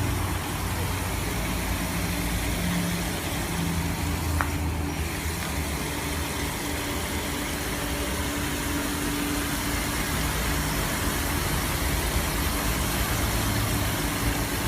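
Several centrifugal fog humidifiers (spinning-pot mist makers for swiftlet houses) running together: a steady motor hum under an even hissing rush of air and mist.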